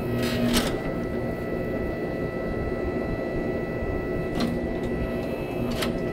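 Hydraulic pump of a 40-ton forging press running with a steady whine as the ram squeezes a hot steel bar, with a few sharp clicks and knocks from the dies and work. A straining note in the pump is the cue to stop the stroke.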